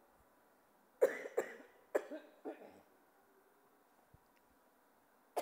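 A woman coughing into a handheld microphone, about four short coughs in quick succession, starting about a second in.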